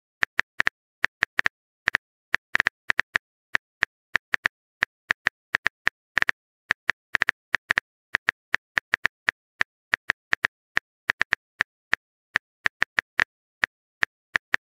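Phone keyboard tap sounds: a short, sharp click for each letter typed, at an uneven pace of about three to four a second, with dead silence between clicks.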